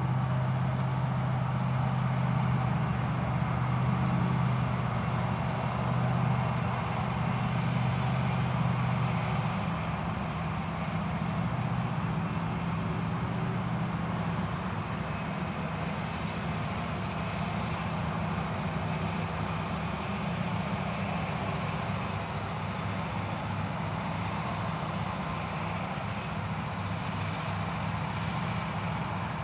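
Self-propelled forage harvester chopping maize: a steady drone of the diesel engine and cutterhead with a strong low hum, easing slightly about a third of the way through.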